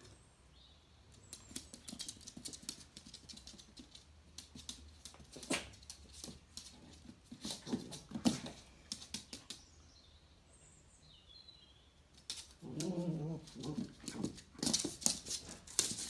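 Dachshund's claws clicking and scrabbling on a laminate floor as it hops and spins about, in scattered quick runs of ticks. About two-thirds of the way through, the dog gives a short low vocal sound.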